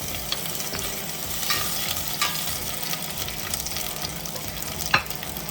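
Green and orange bell pepper strips frying in hot olive oil in a pot: a steady sizzle, with a few sharp clinks of the stirring utensil against the pot, the loudest near the end.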